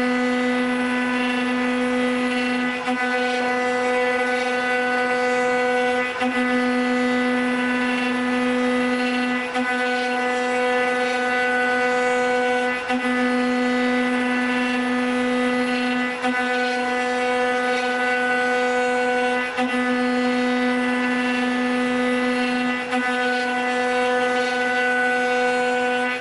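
CNC router spindle running with a steady whine as its bit carves a wooden baluster turning on the machine's rotary axis. The tone dips briefly about every three seconds.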